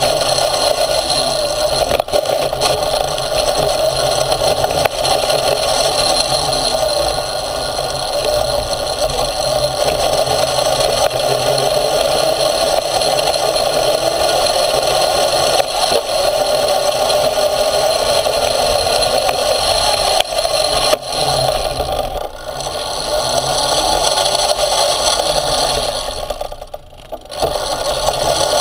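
Motorized off-road skate running over a dirt trail: its wheels and frame rattle and scrape over a steady, wavering motor whine. The noise drops briefly near the end.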